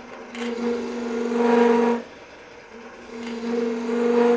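Spindle gouge scraping the mouth of a wooden twig pot spinning on a lathe, opening the drilled hole into a funnel. Two scraping passes, each about a second and a half long, each with a steady hum under the scrape.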